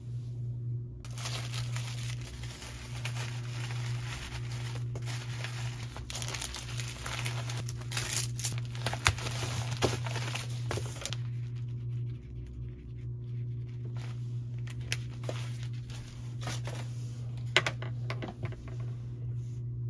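Plastic poly mailer and wrapped paper package crinkling and rustling as the package goes into the mailer and is pressed flat, followed by a few light clicks and taps on the desk. A steady low hum runs underneath.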